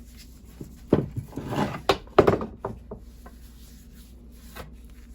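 A few sharp knocks and short scraping rubs from objects being handled at a workbench, bunched between about one and two and a half seconds in.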